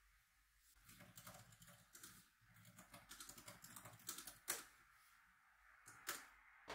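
Typing on a laptop keyboard: a quiet run of key clicks starting about a second in, one louder tap near the middle, a short pause, then a couple more taps near the end.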